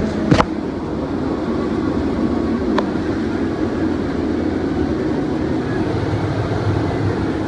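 Combine harvester running steadily while harvesting corn, a constant low machine drone. A sharp click about half a second in, and a fainter tick a couple of seconds later.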